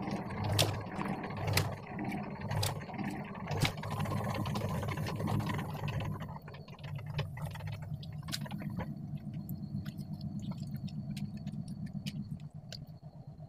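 1-kilo ice moulds being set into the salt-water brine tank of an ice-block machine: knocks about once a second with water sloshing, going quieter after about six seconds into small scattered clicks, over the steady low hum of the running refrigeration unit.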